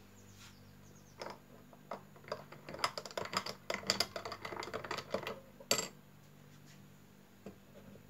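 Long metal spoon stirring a tall glass of Dalgona coffee, clinking against the glass in a quick irregular run of clinks for several seconds, ending with one louder clink.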